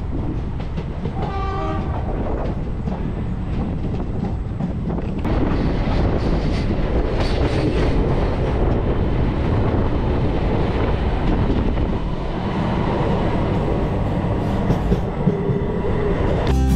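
Passenger train running at speed, heard from aboard: a steady rumble with wheel clatter on the rails that grows louder about five seconds in. A horn sounds briefly about a second in.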